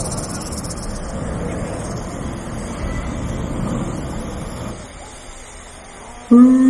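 Steady outdoor background noise of traffic and voices that drops off about five seconds in. Near the end a loud, held musical tone starts suddenly.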